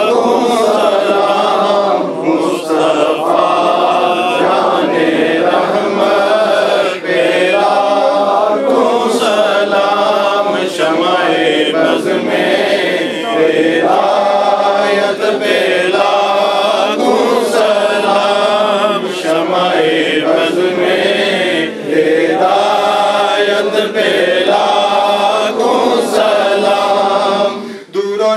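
Unaccompanied male voice chanting an Urdu salam, sending durood on the Prophet in long, slow melodic phrases with short breaks between them.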